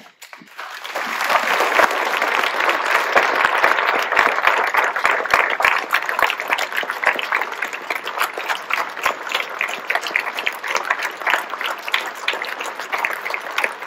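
Audience applauding: the clapping swells up within about the first second and carries on as a dense, steady mass of claps.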